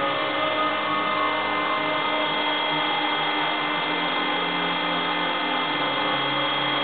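Hydraulic power unit of a top loading arm running steadily: an electric motor and pump giving a constant whine made of several steady tones.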